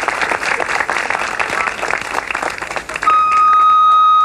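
Crowd clapping continuously. About three seconds in, the clapping cuts off and a loud steady beep at one pitch sounds for just over a second.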